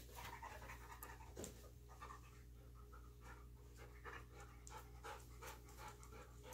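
Dog panting faintly in quick, uneven breaths during a scent search, typical of a dog that is tiring.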